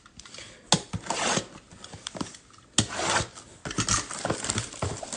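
A Bowman Draft Lite hobby box of trading card packs being opened by hand: wrapping and cardboard rubbing and scraping, with a sharp snap about a second in and another near three seconds, then busy crinkly handling noise.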